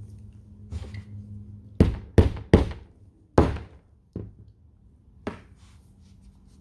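Rubber mallet knocking a white PVC tee spacer onto the corner of a fabric-wrapped PVC pipe frame, six knocks in all, the first four the loudest. The spacer is a very tight fit because of the added layer of fabric.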